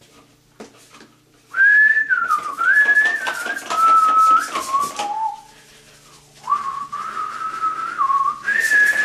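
A person whistling a tune, in two phrases with a short break between them, over light scrubbing sounds.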